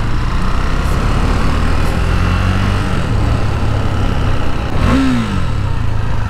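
KTM Duke 390's single-cylinder engine running under way, with one short rev that rises and falls in pitch about five seconds in.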